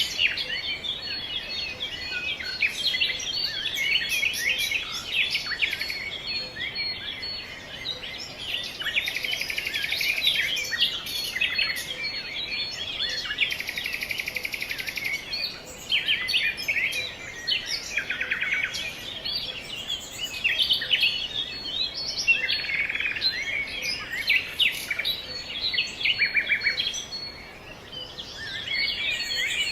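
A flock of small songbirds, house finches among them, chirping and twittering in many overlapping short calls, with two buzzy trills of a second or two near the middle.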